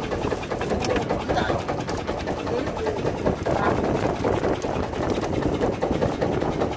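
A boat's engine running steadily: an even, dense low rumble with no change in speed.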